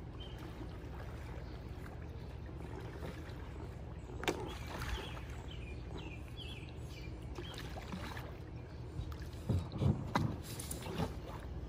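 Paddle strokes splashing in lake water as a stand-up paddleboard is paddled in to the bank, over a steady low background rumble, with a few louder strokes near the end.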